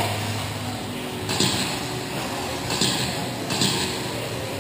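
1/10-scale two-wheel-drive electric RC buggies with 17.5-turn brushless motors racing on an indoor dirt track: a steady hum under three short hissing bursts as the cars go by, about a second and a half in, near three seconds and again just after.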